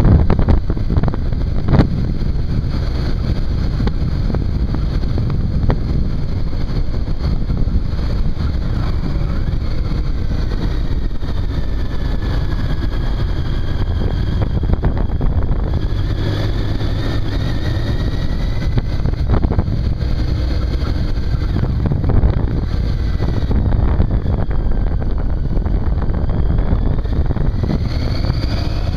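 Triumph Tiger 800 inline three-cylinder engine running on the move, heard through heavy wind rumble on a handlebar-mounted camera microphone. The engine's pitch rises and falls a few times as the revs change.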